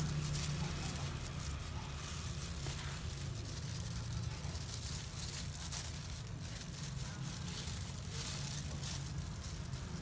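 A small brush scrubbing black dye into wet goat hair in repeated strokes: a soft, irregular wet rustling over a steady low hum.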